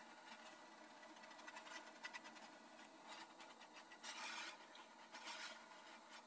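Faint air hiss from a powder coating gun spraying powder onto a small bumper bracket, swelling in two short puffs about four and five seconds in, with a few small clicks.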